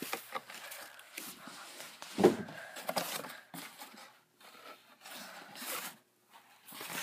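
Rustling and scraping handling noise as a phone is moved around and the popsicle-stick frame is handled, with light clicks and one louder thump about two seconds in.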